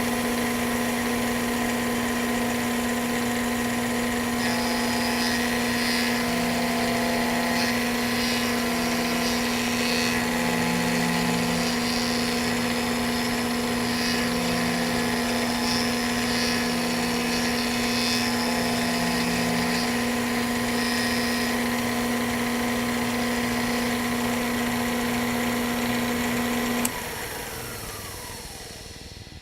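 CNC spindle running a carbide round-over bit with a steady whine, the bit chattering intermittently as it cuts the radius on the aluminum edge. Near the end the spindle shuts off and winds down with a falling whine.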